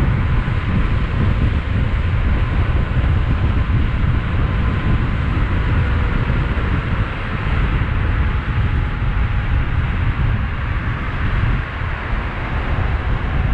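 Steady wind rush and road noise from riding a 72-volt, 5000-watt DIY electric bike at speed, with a low buffeting rumble throughout.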